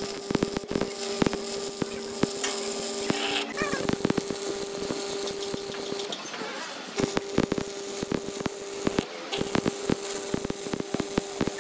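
Stick-welding arc crackling and spitting over a steady electric buzz. The arc breaks off about six seconds in and strikes again a second later, with another brief break near nine seconds.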